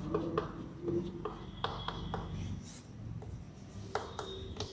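Chalk writing on a chalkboard: a run of short taps and scratchy strokes, with a brief high squeak about two seconds in and again near the end.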